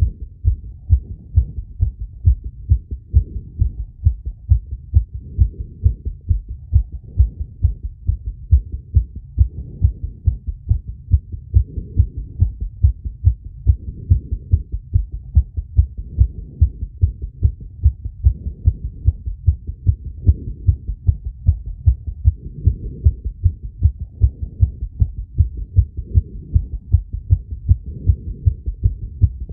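Human heartbeat picked up by a phonocardiogram sensor on the chest: a rapid train of evenly spaced, low-pitched lub-dub thumps, the heart racing from intense exercise.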